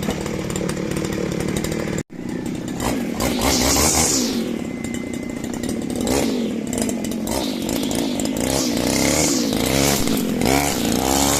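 Small lawn mower petrol engine running after being started, its speed rising and falling. The sound cuts out for an instant about two seconds in.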